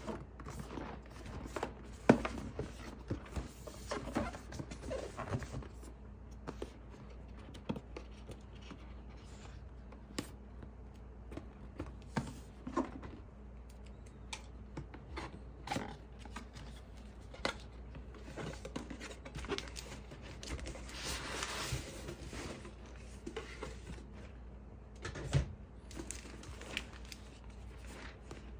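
Hands handling and opening a cardboard box: irregular scrapes, rubs and taps of cardboard, the sharpest a tap about two seconds in, with a longer sliding rustle about three-quarters of the way through.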